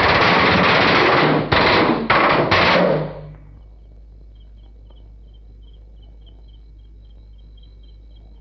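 Loud, sustained machine-gun fire, broken by a few short gaps and stopping about three seconds in. After it, crickets chirp faintly in an even rhythm.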